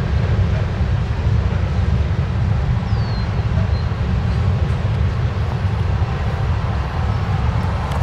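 Freight train rolling past: a steady, heavy low rumble of wheels on rail.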